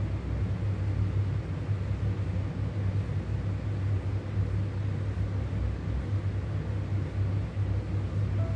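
Steady low rumble of room noise with a deep, constant hum.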